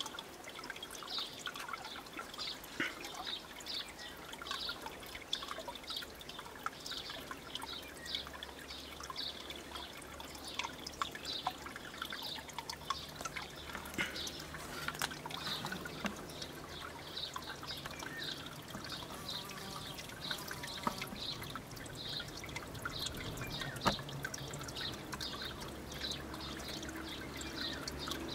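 Natural spring water trickling and dripping into a stone-lined pool. A high chirp repeats about twice a second above the water.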